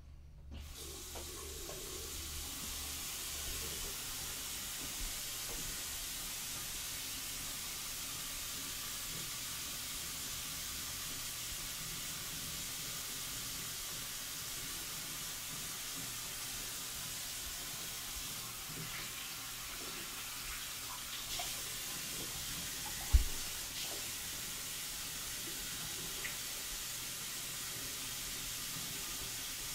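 Water running steadily from a bathroom sink faucet, with a single sharp thump about two-thirds of the way through.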